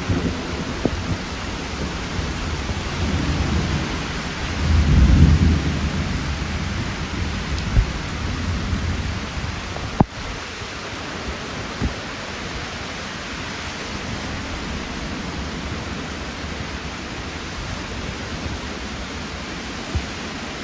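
Steady heavy rain with a low rumble of thunder swelling in the first few seconds, loudest about five seconds in. A few sharp clicks stand out later.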